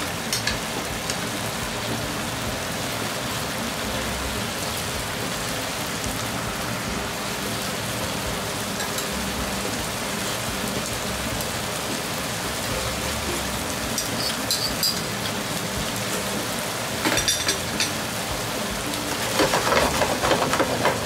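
Eggplant, mushroom and meat sauce sizzling in a frying pan on the stove, a steady hiss with a few small pops. Near the end a wooden spatula stirs and scrapes through the sauce.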